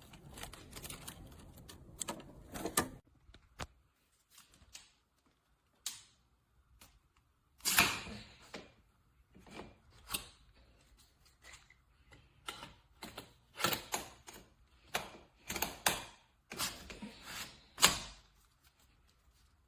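Steel links of a FoldyLock folding bike lock clicking and clacking as it is handled and folded. The knocks are irregular and scattered, with short quiet gaps, and they come thicker in the second half.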